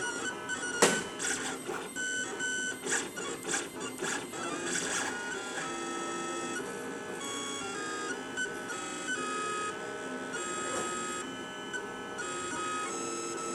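FDM 3D printer's stepper motors whining as the print head traces the first layer, the tone jumping between a few pitches with each change of move. There is a run of sharp ticks during the first five seconds.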